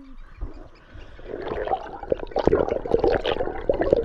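Shallow seawater sloshing and splashing close to the microphone, building up about a second in and growing louder.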